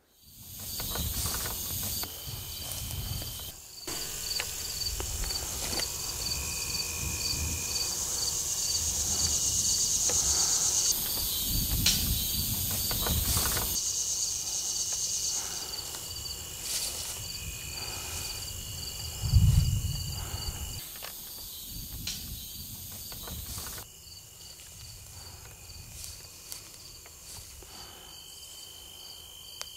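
Insects chirping outdoors: a regular high chirp repeating about three times every two seconds over a steady high buzz. Low rumbling noise runs underneath, with a brief louder low rumble about two-thirds of the way through.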